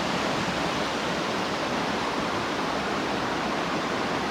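River water running steadily, an even rush of flowing water with no breaks.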